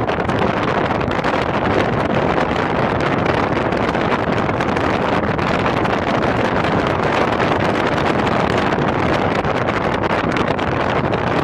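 Steady wind rushing over the microphone of a camera mounted on an open-top Smart Roadster driving at road speed, with the car's driving noise mixed in.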